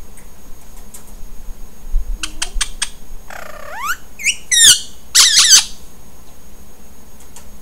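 Violet Indian ringneck parakeet calling. It gives a few quick chirps, then a rising call, then loud, harsh, wavering screeches near the middle. This is the angry, jealous screeching its owner puts down to her holding a lovebird.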